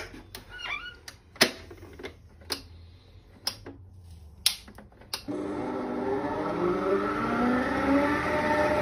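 A few sharp clicks and knocks as the stand mixer is set up, then about five seconds in its electric motor starts and runs steadily, whining with tones that climb slightly as it picks up speed, the balloon whisk beating chilled evaporated milk in the steel bowl.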